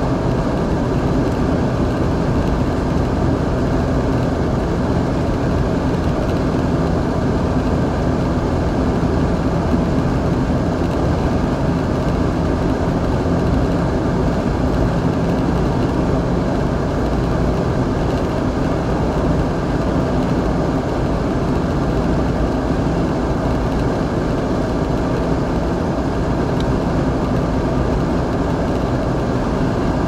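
Car cruising at steady highway speed, heard from inside the cabin: an unbroken drone of engine, tyres and wind.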